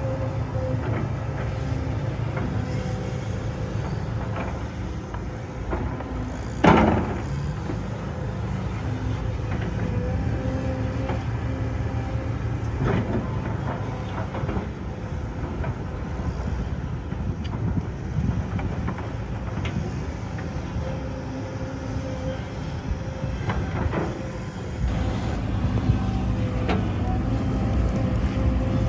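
Heavy diesel earthmoving machinery (excavator and dump trucks digging out a pond) running steadily, with a loud metallic clank about seven seconds in and a few lighter knocks later.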